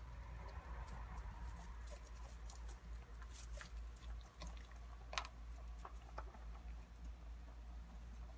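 Pet rabbits eating their snack: faint, irregular crunching clicks of chewing, with one louder click about five seconds in, over a steady low hum.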